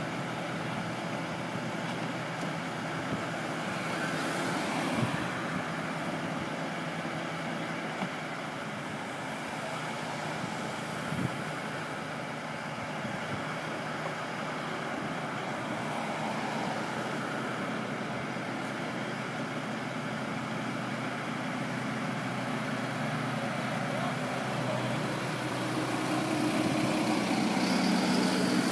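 Steady road traffic noise with a truck engine running at a constant speed underneath. Near the end a box truck passes close by, growing louder.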